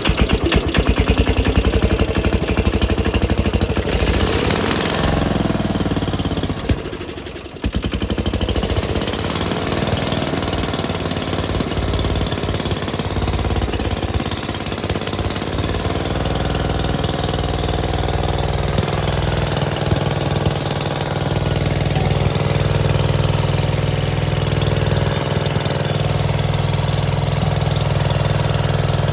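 Gravely Commercial 10A tractor engine running just after a cold start, once its ignition points have been cleaned. It runs roughly at first, dips briefly about seven seconds in, then settles into steady running.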